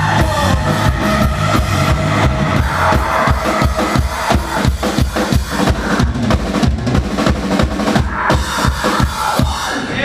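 A loud live rock band playing, recorded from the crowd: heavy drums and distorted instruments, with the drum strikes coming thick and fast in the second half.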